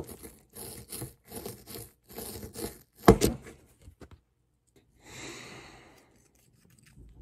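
A small digging tool scraping and chipping at a crumbly gem dig-kit block in quick repeated strokes, about three a second, with one louder, harder stroke about three seconds in. After that the scraping stops, and a soft rustle follows a couple of seconds later.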